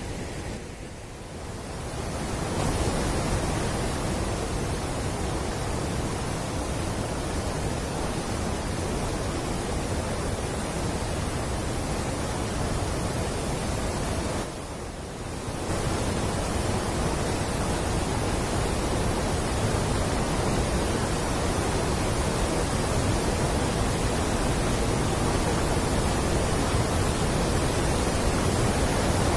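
Water rushing and churning as it pours out under a partly opened steel sluice gate of a river barrage, a loud, steady wash of noise. It drops briefly about a second in and again about halfway through.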